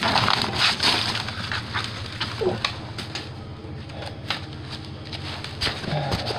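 Plastic garbage bags crinkling and rustling as they are grabbed and hauled about, with scattered crackles. The sound is loudest in the first second or so, then settles to quieter rustling.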